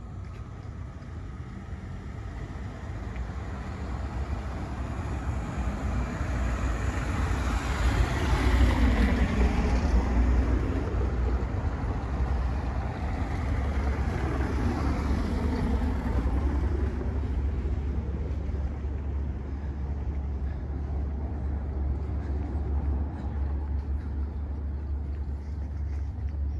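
A car driving past on a cobblestone street, its tyre and engine noise building to its loudest about nine seconds in and then slowly easing off. A steady low rumble runs underneath.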